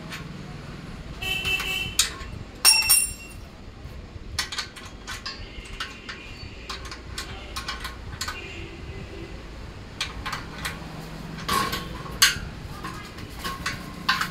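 Irregular metal clanks, knocks and clinks of a steel sewing-machine stand's frame and rods being handled and fitted, with a few short metallic rings in the first few seconds.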